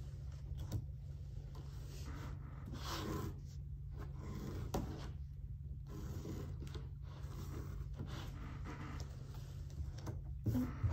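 Pencil scratching on paper in short, uneven strokes while shapes are drawn, over a steady low room hum. A brief, louder sound comes near the end.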